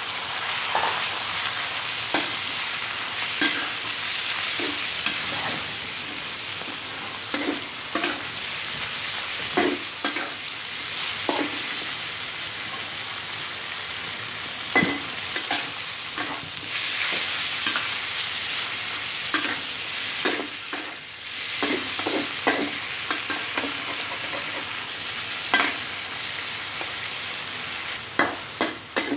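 Pork belly, garlic and raw pork sizzling in hot oil in an electric pan, under a steady hiss. A metal spatula stirs the meat, scraping and clacking against the pan at irregular moments.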